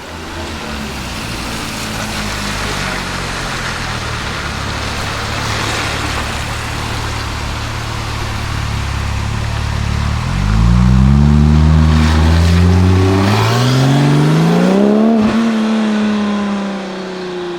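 Porsche 997 Turbo's twin-turbo flat-six running through a SOUL Competition exhaust. It runs steadily at low revs, then gets louder about ten seconds in and climbs in pitch twice, and the revs fall away near the end.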